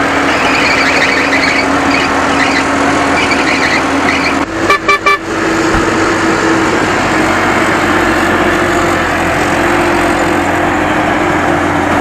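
A heavy vehicle's engine running steadily. About four and a half seconds in, a vehicle horn gives a quick series of short toots.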